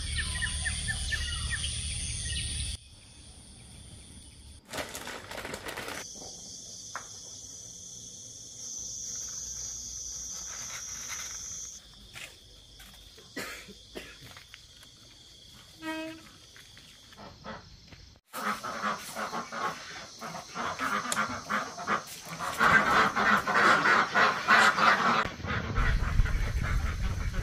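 Domestic ducks quacking in a loud, dense chorus from about two-thirds of the way in. Before that, quieter outdoor sound with a steady high-pitched drone in the background.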